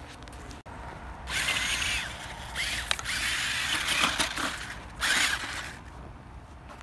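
Toy Monster Jam Megalodon RC truck's electric motor and gearbox whirring in several bursts as it drives through snow. The whir starts about a second in, rises and falls in pitch, and stops shortly before the end.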